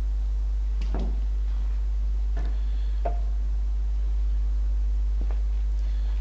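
Steady low hum with a few faint, short knocks spread through, about four in all.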